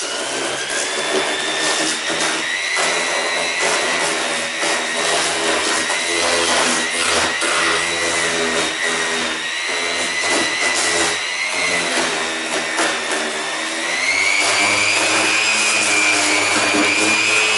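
Electric random orbital sander running with its pad pressed against a plastic car bumper, sanding down the damaged area. Its motor whine climbs in pitch over the first couple of seconds, holds steady with a rough sanding noise, and steps up in pitch about fourteen seconds in.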